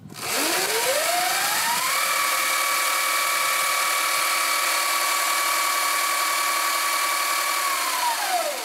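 Sur-Ron electric dirt bike's motor and chain primary drive spun up with the rear wheel free on a stand: a whine rises over about two seconds, holds at a steady pitch, then falls away near the end, over a steady noisy whir from the drive.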